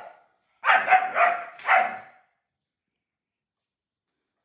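German Shepherd puppy barking protectively, three quick barks about a second in.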